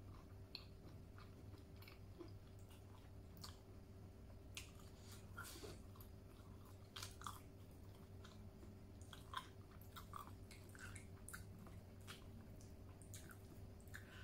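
A person chewing food with the mouth close to the microphone: faint, wet mouth sounds with scattered soft clicks.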